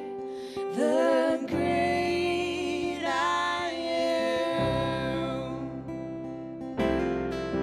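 Live worship song: strummed acoustic guitar with sung vocals, the voice holding wavering notes.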